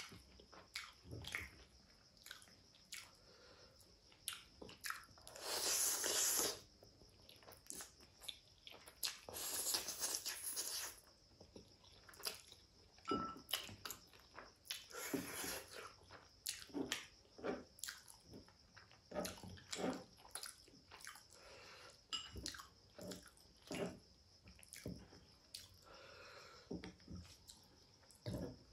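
Close-miked eating of 2x spicy Korean ramen noodles: several long slurps of noodles, with wet chewing and mouth clicks in between.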